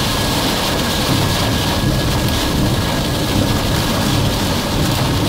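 Heavy rain and wind from a rain-wrapped tornado pounding a moving vehicle, heard from inside the cabin, with a steady low rumble underneath.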